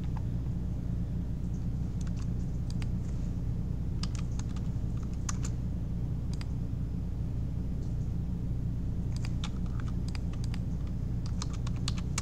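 Computer keyboard typing in short bursts of keystrokes, separated by pauses, over a steady low hum.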